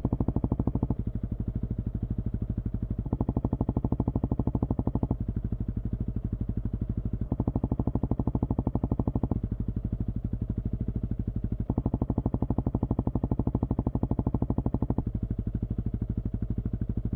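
Honda CRF300L single-cylinder four-stroke engine idling steadily with aftermarket exhausts. The sound switches back and forth every two seconds or so between a Dominator MX2 slip-on, which is louder and fuller, and a quieter, duller Yoshimura RS-4.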